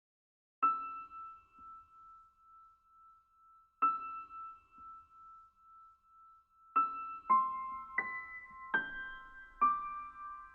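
Keyboard playing single high notes: two slow notes on the same pitch, then five more notes in quicker succession, each ringing on after it is struck.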